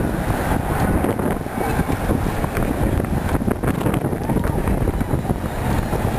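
Wind buffeting the microphone, a steady low rumble with gusty fluctuations that covers most other sound.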